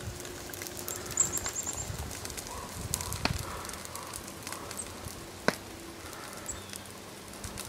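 Outdoor ambience of scattered light crackles and clicks, with a quick run of about five short, high bird chirps a little over a second in.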